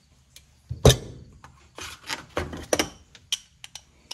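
Chrome steel hand tools being handled: a loud clunk about a second in as a ratchet is set down, then lighter metallic clicks and clinks as tools are picked from a plastic socket case.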